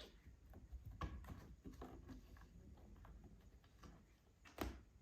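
Faint scattered pattering and light taps of kittens scampering and playing, with a sharper knock near the end.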